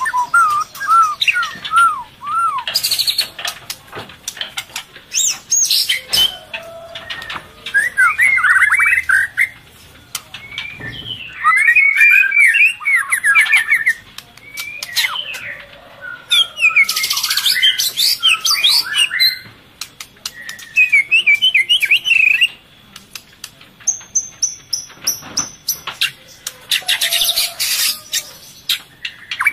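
Murai (white-rumped shama) calling in repeated bursts of quick, jumbled chirping and warbling phrases, with a few higher thin trills and short squawky notes between them.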